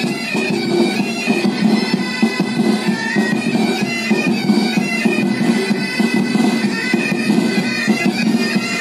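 Military pipe band playing: massed bagpipes, their steady drones held under the chanter melody, with the band's drums.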